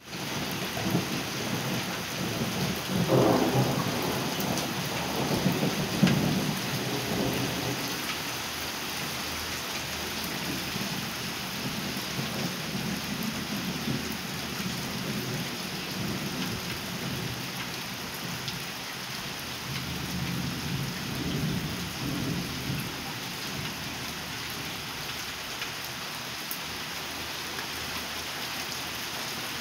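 Steady rain falling with a continuous hiss, with rolling thunder rumbling through the first several seconds, loudest a few seconds in, and fainter rumbles later on.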